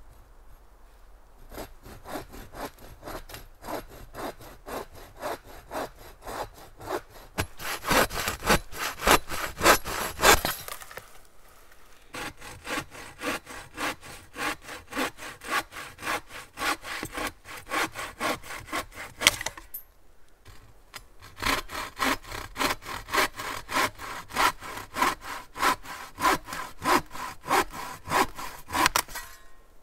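Bow saw with coarse teeth cutting a dry, weathered dead branch, at about two strokes a second. The sawing comes in three runs, with two short breaks.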